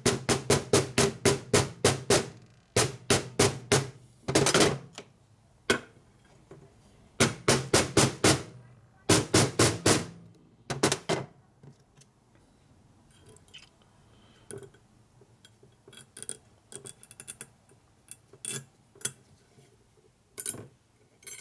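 A hammer striking a driver to tap a new oil seal into the aluminum crankcase of a Harley-Davidson WL 45 flathead, in quick runs of blows about four a second, several runs over the first half. The seal is being set just deep enough to fit its retaining clip behind it. Later come only light clicks of small metal parts being handled.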